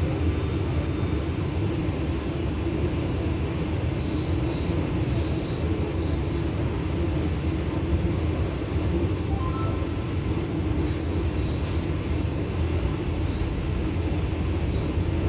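EP2D electric multiple unit running along the line, heard from inside the carriage: a steady rumble of wheels on rail with a constant low hum. Brief high-pitched squeaks or ticks come a few times.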